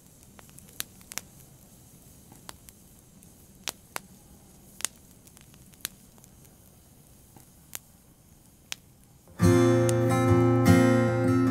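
Quiet room tone with scattered sharp clicks, then an acoustic guitar, capoed up the neck, starts playing about nine seconds in, with ringing, sustained chords.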